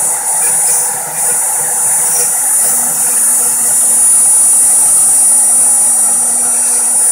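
A CNC router's spindle runs at a steady high whine while its small end mill cuts into wood, with a continuous rough cutting noise under the whine.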